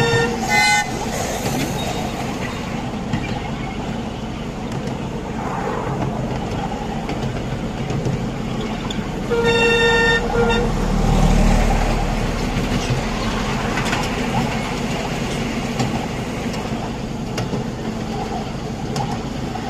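Miniature ride-on park railway trains: a steady running noise of a train on the narrow-gauge track, with a couple of short whistle toots right at the start as a small steam locomotive is met. About ten seconds in there is a toot lasting about a second, then a low rumble as a passenger train passes close by.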